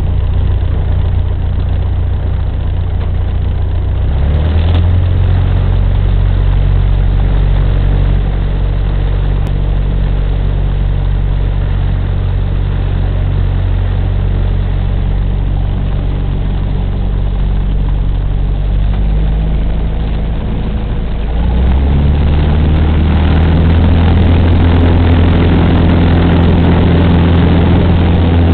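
Cessna 150's four-cylinder piston engine and propeller running steadily, with a change in power about four seconds in and a clearer rise in power and loudness about 21 seconds in.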